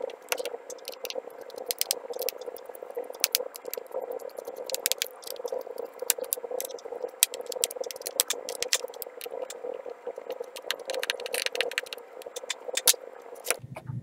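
Small irregular clicks and rattles of a precision screwdriver and loose screws being handled against a laptop's plastic bottom cover, over a steady faint hum.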